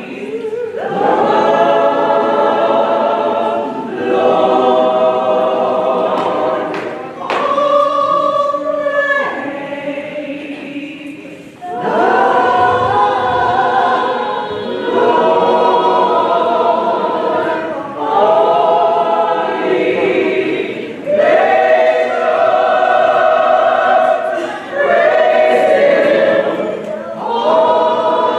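Choir singing a gospel hymn in sustained phrases of a few seconds each, with short breaks between them.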